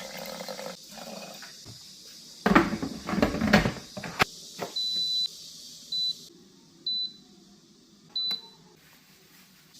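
Clattering as something is handled and set down, then an electric rice cooker's control panel beeping. It gives one longer high beep followed by three short beeps about a second apart as its buttons are pressed.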